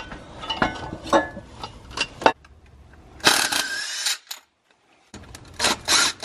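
Metallic clinking and knocking of bolts and a steel brace being handled against a truck's transmission crossmember. A short burst of hiss comes about three seconds in, and near the end a cordless impact driver gives several short rattling bursts as it runs the brace bolts in.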